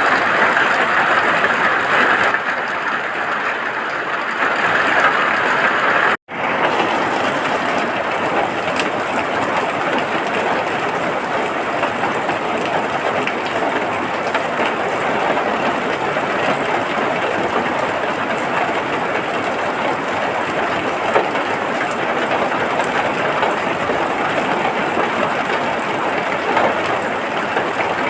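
Steady, dense rainfall, a continuous hiss of rain. It drops out for a split second about six seconds in, then carries on slightly duller.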